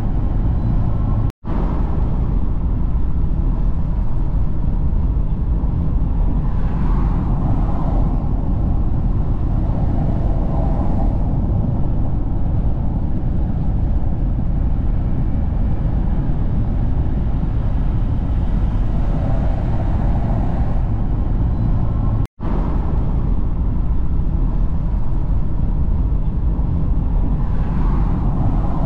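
Steady in-cabin road noise of a car driving at motorway speed: a deep tyre and engine rumble with wind hiss, swelling a little now and then. The sound cuts out for an instant twice.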